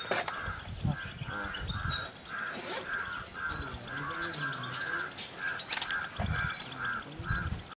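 A bird calling a short, harsh note over and over, about twice a second.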